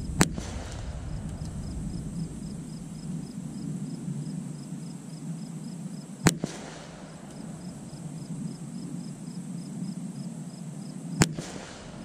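.22 LR rifle shots, three about five seconds apart, each a sharp crack followed by a short echo.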